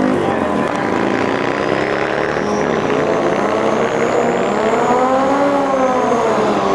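Turbocharged Suzuki Hayabusa drag bike revving hard through a burnout, spinning its rear tyre. The engine pitch rises and falls with the throttle, loudest in the second half.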